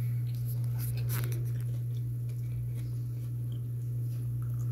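A person biting into a corn tortilla chicken taco and chewing, with a few sharp crisp bite sounds in the first second or so, over a steady low hum.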